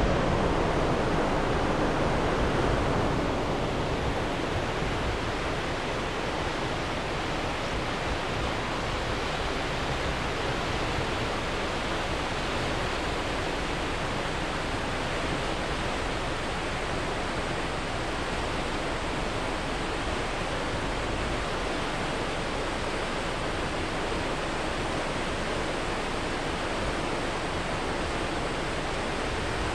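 Steady rush of fast-flowing water, an even hiss with no breaks.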